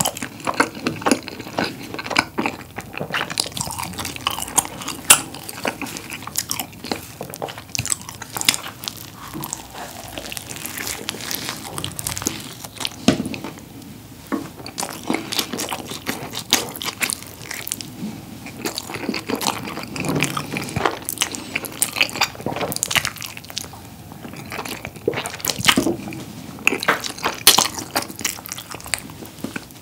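Close-miked mouth sounds of a man biting into and chewing a whole combination pizza rolled up into a log: a steady run of short, sharp bites and chewing clicks.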